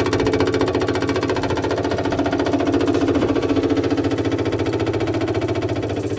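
Electric 12-volt fuel pump running with a rapid, steady ticking, pumping fuel to the carburetor bowl.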